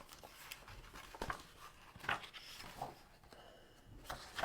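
Faint scattered rustles and light taps from a picture book being handled and its pages turned.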